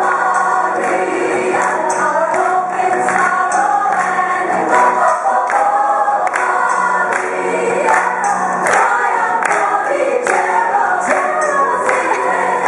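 A choir singing together over music, with a steady beat of handclaps.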